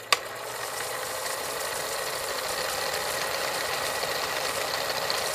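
Film projector sound effect: a sharp click, then a steady mechanical clatter with hiss, the running sound laid under an old-film countdown leader.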